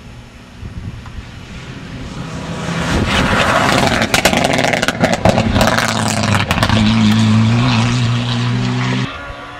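Rally car approaching and passing at speed, its engine note building as it nears. The loudest part holds a run of sharp cracks, followed by a steady high engine note that drops away suddenly near the end.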